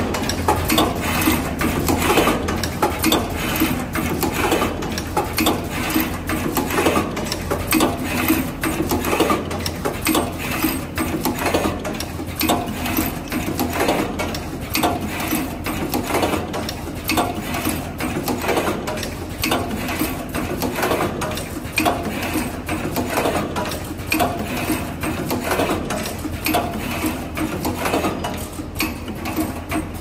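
Automatic power-plug assembly line running: a steady low hum under rapid mechanical clicking and clattering from its conveyor fixtures and stations, with a louder clatter every couple of seconds.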